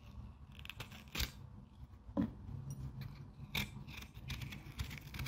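Kitchen knife cutting fruit for a fruit salad: a few separate sharp clicks and taps, about three strong strokes with smaller ones between.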